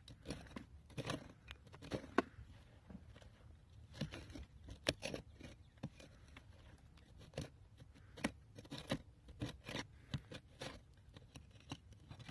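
Hand digging in the dirt around buried bottles: irregular scrapes and sharp clicks, a few a second, as a tool or hands work the soil loose.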